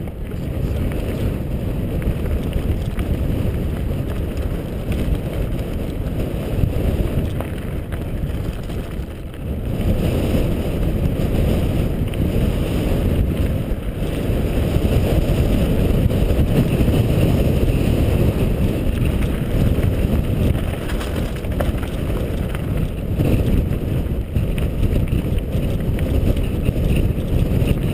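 Mountain bike descending a gravel track: wind rushing over the helmet-mounted camera's microphone mixed with tyres rumbling over loose stones, a steady low roar that dips briefly about a third of the way in.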